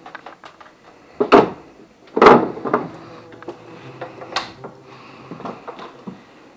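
Wooden cupboard doors and drawers being opened and shut: three sharp knocks, the loudest a little over two seconds in, with lighter clicks and rattles between.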